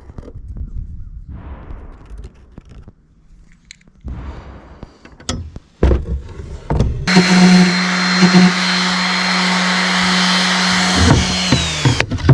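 Quiet handling knocks and rustles, then an electric power tool starts about seven seconds in and runs steadily for about five seconds with a steady hum and a high whine, winding down near the end.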